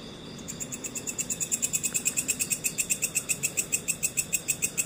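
A nearby insect calling at night: a fast, even train of high chirping pulses, about eight a second, that starts just after the beginning, grows louder and cuts off suddenly near the end. Under it runs a steady high drone of crickets.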